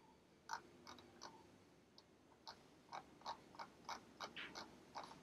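Faint, irregular clicks of a computer mouse, about a dozen of them, a few apart at first and coming faster in the second half.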